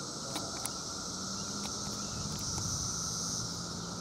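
Outdoor trackside ambience: insects buzzing in slow swells over the low, steady hum of a distant diesel work train approaching.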